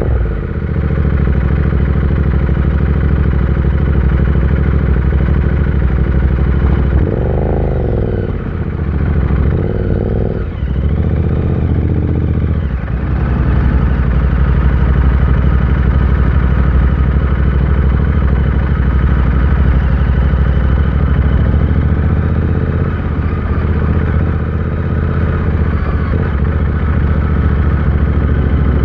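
Royal Enfield Interceptor 650 parallel-twin engine running. Its revs rise and fall twice between about seven and twelve seconds in, then it runs steadily.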